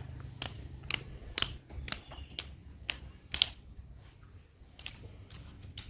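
Irregular sharp clicks and taps, about a dozen, over a faint low hum.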